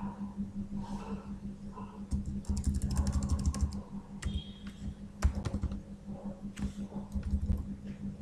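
Typing on a computer keyboard: irregular key clicks with a quick run of keystrokes about two to three seconds in, as code is deleted and retyped. A steady low hum runs underneath.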